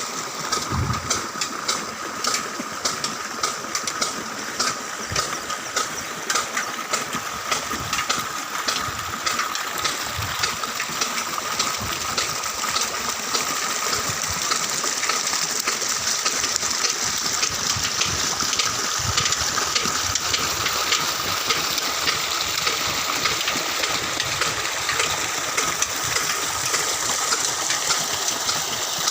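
Old engine running steadily, with a steady tone, hiss and dense rapid clicking throughout.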